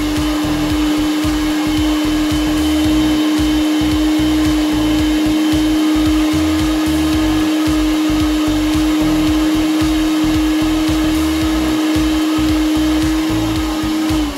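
Personal bullet-style blender, its cup pressed down onto the motor base, running steadily as it blends a frozen-blueberry smoothie with one steady motor tone. Right at the end the motor is released and its pitch falls as it spins down.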